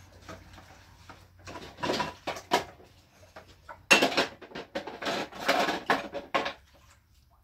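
Pots and dishes knocking and scraping in irregular bursts, with a sharp knock about four seconds in followed by rough scraping.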